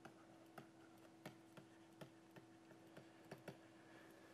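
Faint, irregular clicks and taps of a stylus on a pen tablet as a word is handwritten, about two or three a second, over a faint steady hum.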